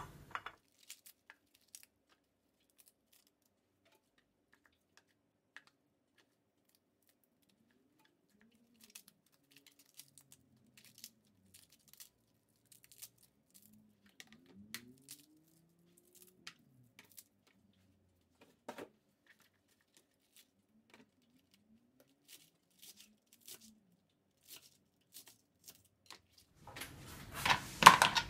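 Romaine lettuce leaves torn by hand into a plastic bowl: faint, scattered crisp snaps and rips. Near the end comes a louder clatter as cherries are tipped out onto a plastic cutting board.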